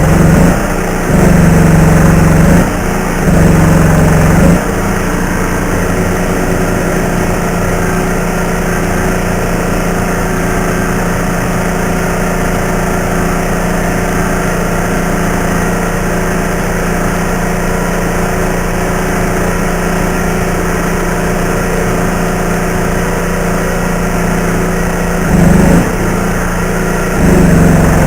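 Electric stick welding: a steady machine hum throughout. It swells into louder buzzing stretches of one to two seconds, three near the start and two near the end, where the welding arc burns.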